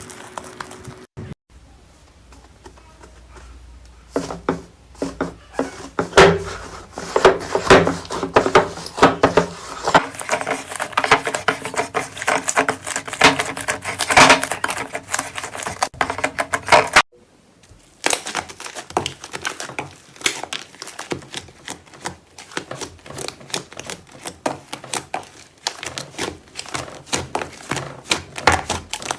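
Slime being squeezed and poked by hand: rapid, crisp crackling and clicking, with a couple of short pauses where one clip gives way to the next.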